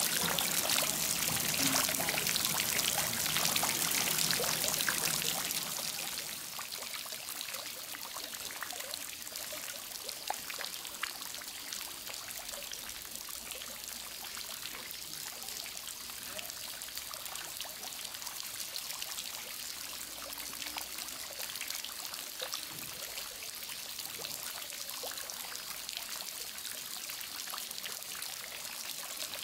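Water falling and trickling into a penguin enclosure's pool, with scattered small drips. It is louder for the first five seconds or so, then settles to a steady, lighter trickle.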